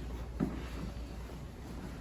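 Patient turning over on a padded chiropractic treatment table: faint rustling and shifting with one soft thump about half a second in, over a low steady hum.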